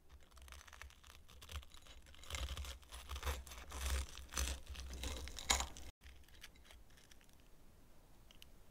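A table knife sawing through the crisp breadcrumb crust of a fried coxinha: a dense run of crackling crunches that grows louder about two seconds in and stops abruptly near six seconds.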